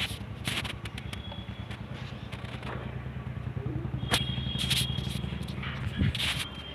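A vehicle engine running steadily at idle, stopping about six seconds in, with a few short clicks and scrapes over it.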